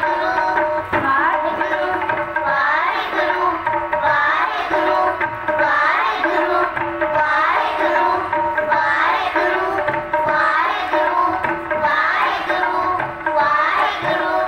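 A group of children singing a Punjabi devotional song together, accompanied by tabla, with steady held notes under the voices.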